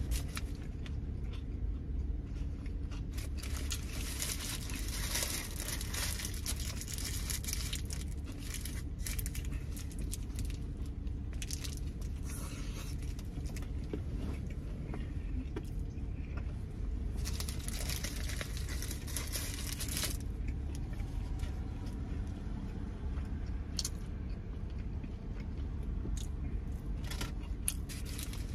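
Chewing a burrito and the crinkle of its paper wrapper, coming and going in spells, over a low steady hum.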